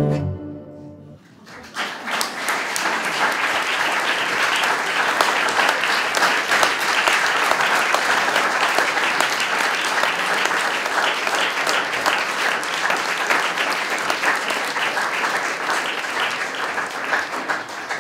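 The final chord of two classical guitars fades away, then audience applause starts about two seconds in and goes on steadily.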